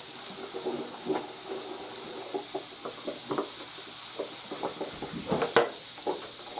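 Distilled white vinegar going onto baking soda in a clogged drain, bubbling and gurgling with many small irregular pops over a faint steady hiss. A single sharp knock comes about five and a half seconds in.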